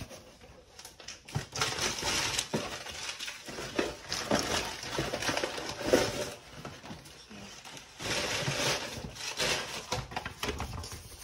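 Paper and tissue paper crinkling and rustling as they are unwrapped and unfolded by hand, in uneven stretches of crackle with small clicks; the sharpest crackle comes about six seconds in.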